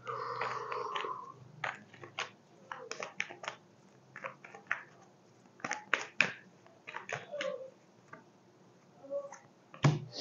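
Tarot cards being shuffled and handled: a string of irregular soft snaps and rustles.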